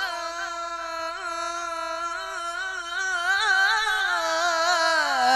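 A male Quran reciter (qari) holds one long, ornamented note of melodic tilawah recitation. The pitch wavers in small turns, rises a little past the middle and falls near the end.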